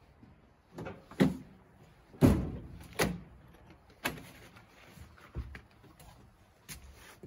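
A pickup truck's tailgate being opened and lowered, the loudest clunk about two seconds in. Lighter knocks and thumps follow as boxes and a flat package are handled in the truck bed.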